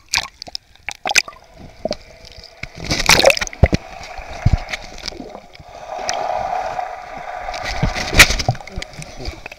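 Sea water sloshing and splashing against a camera held at the surface, turning to muffled underwater gurgling and bubbling while it is submerged. Loud splashes come about three seconds in and again near the end.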